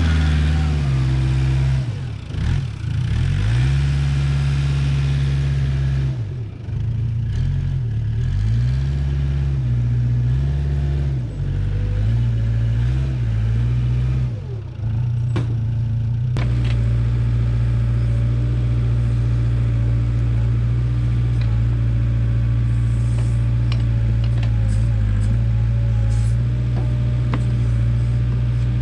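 Case 580K backhoe's four-cylinder diesel engine running under load, its speed rising and falling repeatedly for the first half, then holding a steady note. A couple of sharp knocks come about halfway through.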